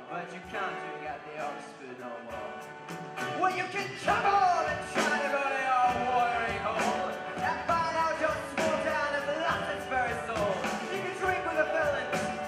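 Live band playing an upbeat folk-rock song on accordion, acoustic guitar, upright double bass, keyboard and drum kit, with a voice singing the melody. The band gets louder about four seconds in, with the drums hitting harder.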